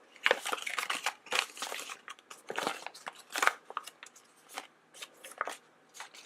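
Irregular crinkles and clicks of small packaging being handled, dense for about the first two seconds and then sparser.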